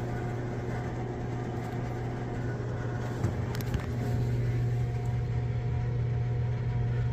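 Frigidaire gas furnace running with a steady low motor hum, with a single click about three seconds in.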